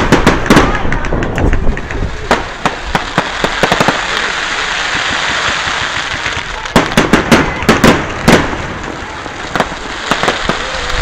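Fireworks going off in a rapid barrage: volleys of sharp bangs and crackles as shots burst overhead, bunched near the start and again about seven to eight seconds in, with a steady hiss between the volleys.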